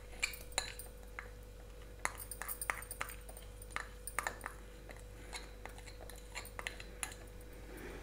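Metal spoon clinking and scraping against a glass bowl and a steel kadhai: light, scattered clicks in small clusters as condensed milk is scooped out and the mixture is stirred.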